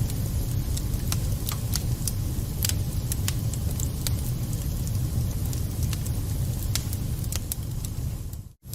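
Wood fire burning in a fireplace: a steady low rumble with irregular sharp crackles and pops. The sound cuts out for a moment near the end and comes straight back.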